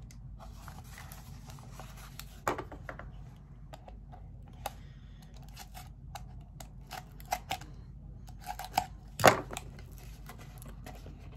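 A cutting tool slitting the paper seal stickers on a small cardboard gift box, with short scratches, snips and clicks, then the box being handled open. The sharpest, loudest snap comes about nine seconds in.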